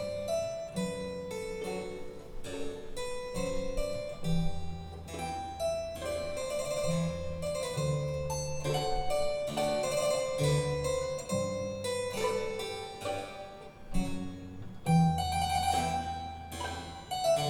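Classical harpsichord music: quick plucked keyboard notes over a sustained bass line.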